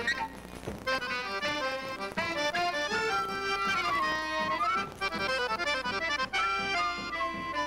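A regional band playing a fast frevo led by accordion, a quick melody of rapid notes, with a few sharp percussion hits in the first second.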